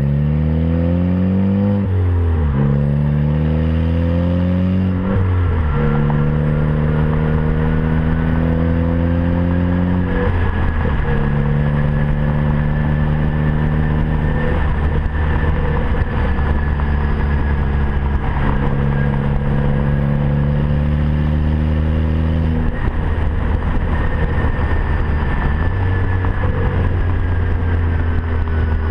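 Ford Focus ST's turbocharged four-cylinder engine pulling through two gear changes in the first five seconds, then running at a steady engine speed. A turbo whistle, made louder by a 3-inch catless downpipe, sounds above the engine as a faint high tone that slowly rises and then falls.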